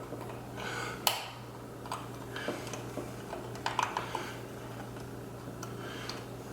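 Small metal clinks and taps of transmission parts and tools being handled while a spring is fitted into a 48RE transmission case, with a sharper knock about a second in and a quick run of clicks near the middle, over a steady low hum.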